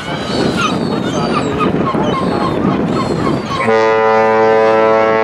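A ship's horn sounds one long, steady blast starting about three and a half seconds in, over people talking.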